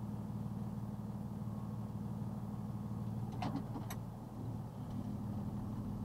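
Box truck engine idling steadily, heard from inside the cab, with a couple of brief clicks a little past halfway.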